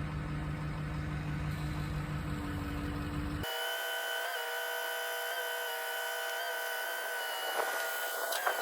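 A motor runs steadily with a low hum. About three and a half seconds in, the sound changes abruptly to a steady high mechanical whine made of several tones, which holds to near the end.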